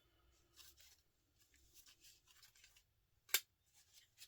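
Faint, scattered clicks and scrapes of small metal parts being handled while a fluorescent light fitting is taken apart, with one sharp, louder click a little over three seconds in.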